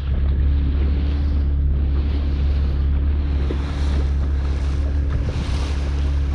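Fishing canoe under way at sea: the steady low hum of its motor, with wind buffeting the microphone and water rushing past the hull.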